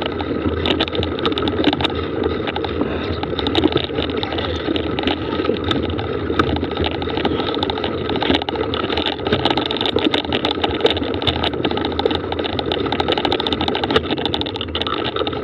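Mountain bike pedalled slowly along a dirt track: steady tyre noise on loose dirt with many small clicks and rattles from the bike.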